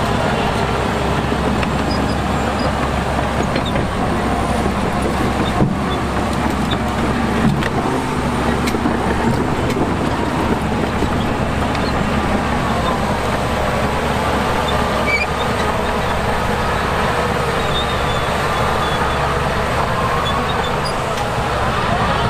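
Diesel engines of heavy earthmoving machinery running steadily under a constant low rumble, their pitch drifting up and down, with a few faint knocks.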